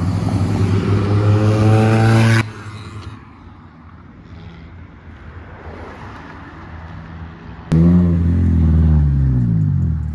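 Car engines revving. One climbs in pitch under throttle and cuts off suddenly after about two seconds; a few seconds later another loud engine comes in abruptly and falls steadily in pitch, like a car accelerating past.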